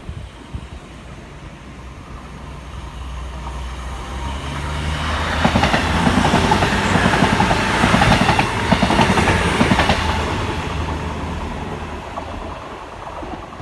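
CrossCountry Voyager diesel multiple unit passing by: a low engine hum builds as it approaches, then a loud rush of wheels clattering on the rails as it goes past, fading as it moves away.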